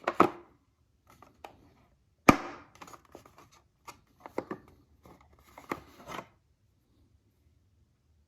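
Clicks and knocks of hand tools being handled: screwdrivers picked up and set back into their tray. The sharpest knock comes a little over two seconds in, with smaller taps until about six seconds in.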